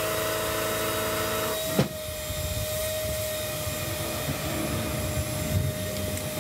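A machine running steadily with a constant whine, broken by a sharp click about two seconds in, after which the drone goes on lower and rougher.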